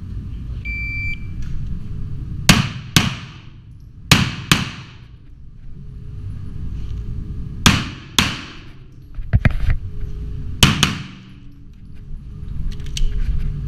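A shot timer's electronic beep starts the course of fire, then a pistol fires about ten shots, mostly in pairs about half a second apart, each ringing off the walls of an indoor range.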